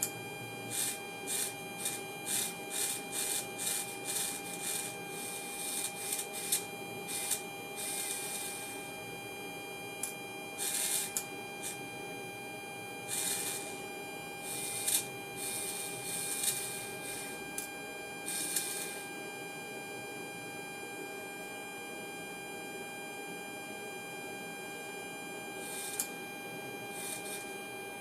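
Servo motor and gear train of a 1970s Kollsman servo altimeter whirring in short bursts as the pointer and counter drum slew to follow a hand-turned synchro. The bursts come about two a second at first, then as longer runs, and stop with only brief ones near the end; the indicator is tracking its synchro input as it should. A steady electrical hum with a fixed whine runs underneath.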